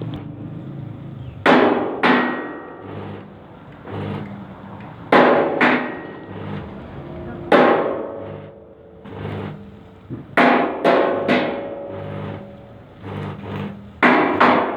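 Blacksmith's hammer striking metal on an anvil: about ten sharp blows in loose groups of two or three, each followed by a short metallic ring.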